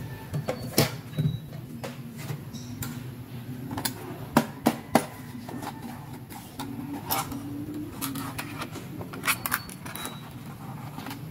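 Hard plastic toys being handled: scattered sharp clicks and taps as a pink plastic toy handbag is picked up and its case clicked open into a toy makeup palette, with a quick cluster of clicks near the end.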